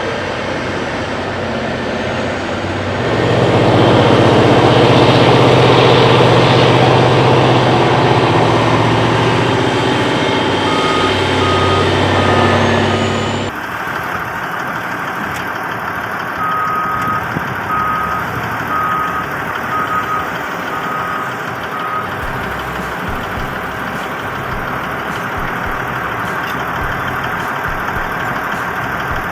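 Heavy machine's engine running, louder for several seconds before changing abruptly, with a reversing alarm beeping in steady runs of short beeps, about one every 0.7 seconds.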